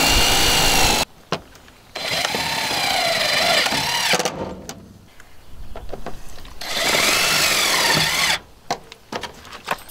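Cordless drill driving screws into the plastic flange of an RV exterior shower box, run in three bursts, its whine rising and falling in pitch within each run.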